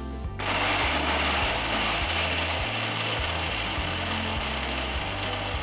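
Electric mixer grinder running steadily, grinding dry ginger, coriander seeds and black peppercorns to a powder in its jar; it starts about half a second in.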